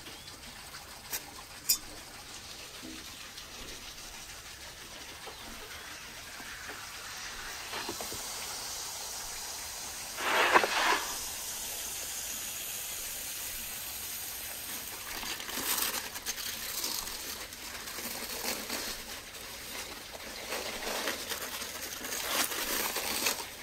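Aluminium foil crinkling and rustling as it is peeled off a large hot wrapped roast, in repeated bursts over a steady hiss. There is a louder burst of noise about ten seconds in and a couple of sharp clicks near the start.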